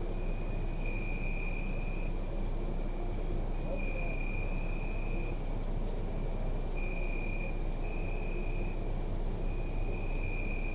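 Crickets trilling at night: one high steady pitch in long trills of a second or two, with short gaps, over a steady low rumble of distant city noise.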